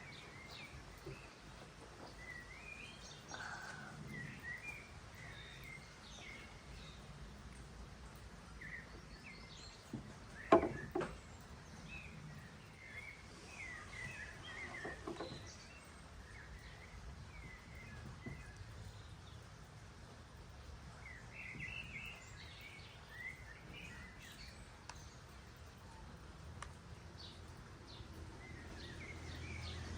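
Small birds chirping and calling on and off over quiet outdoor ambience. A single sharp knock stands out about ten seconds in, and a low rumble builds near the end.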